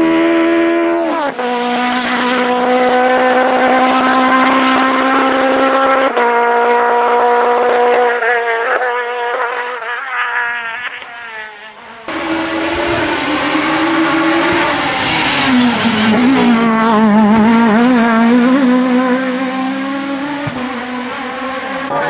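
Peugeot 306 Maxi kit car's four-cylinder rally engine revving hard on a rally stage, the pitch climbing and dropping through gear changes. Several separate passes are cut together, so the engine note jumps abruptly a few times.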